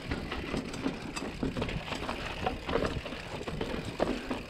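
Mountain bike rolling slowly down a rocky trail section, tyres, frame and drivetrain rattling over the rock. Irregular knocks and clatters over a steady low rumble.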